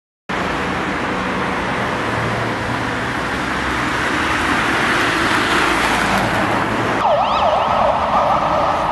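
Steady city street traffic noise. About seven seconds in, a siren starts yelping over it in quick, repeated falling-and-rising sweeps.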